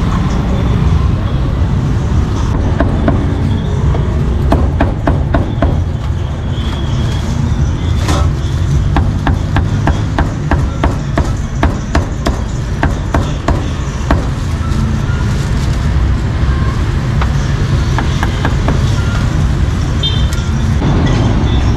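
Meat cleaver chopping cooked meat on a round wooden chopping block: a run of sharp knocks at about three a second, thinning to scattered knocks after about fourteen seconds. A steady rumble of road traffic runs underneath.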